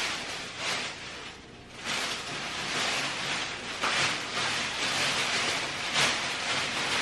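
Plastic shopping bag rustling and crinkling in surges as hands rummage in it and pull out a packaged picture frame, with a short lull about a second in.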